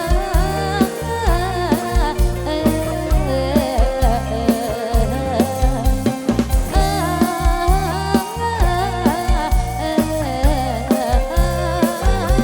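Loud live Thai rot hae sound-truck band music: a wavering, bending lead melody over a steady drum-kit beat and heavy bass.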